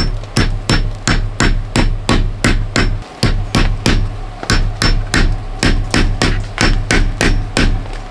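Hammer striking steel pot-support stakes, driving them into the top of a birch log stove in quick light blows of about four a second, with a couple of short pauses. The strikes stop near the end.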